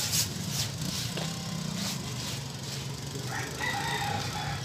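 Footsteps scuffing on a paved street over a low outdoor rumble, then a single long pitched call lasting about a second near the end.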